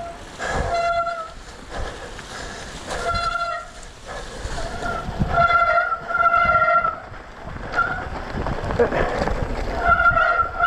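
Mountain bike disc brakes squealing in several bursts of a second or two as the rider brakes on a dirt descent, a steady high-pitched tone over the rumble of tyres on the trail. The rear brake pads are worn out.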